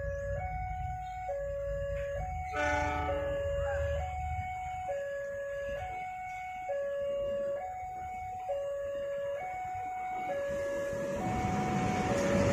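Level-crossing warning alarm sounding, a two-tone electronic chime alternating between a high and a low note, each held just under a second. There is a brief horn about two and a half seconds in, and the rumble of an approaching diesel locomotive grows louder over the last couple of seconds.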